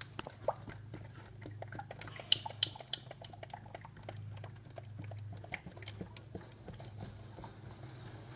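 Motor oil being poured from a plastic jug into the engine's oil filler, with irregular small glugs and clicks as air bubbles back through the pour.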